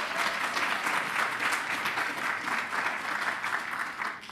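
Audience applauding, many hands clapping together at a steady level, dying away quickly near the end.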